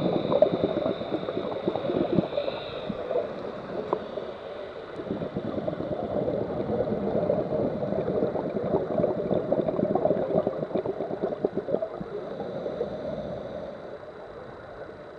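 Scuba regulator exhaust bubbles gurgling and crackling underwater in long exhalations, with a lull about four seconds in and a quieter stretch near the end. A faint steady high tone runs underneath.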